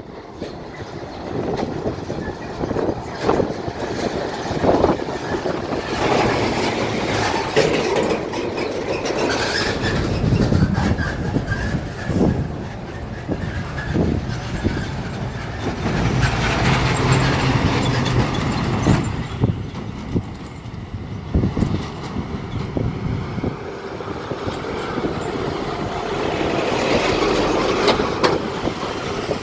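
Heavy diesel goods trucks passing one after another close by, engines running, with frequent clanks and rattles from their bodies and chassis.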